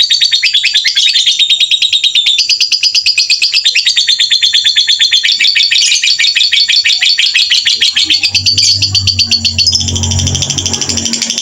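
Small songbirds giving a fast, unbroken run of sharp, high repeated call notes, the kind of rapid 'tembakan' calls used as masteran to tutor white-rumped shamas. A low hum joins about three-quarters of the way through.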